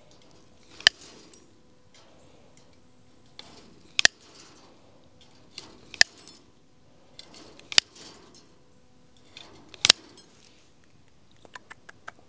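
Bolt cutters snipping through old chain-link fence wire: five sharp metallic snaps about two seconds apart, then a few lighter clicks near the end.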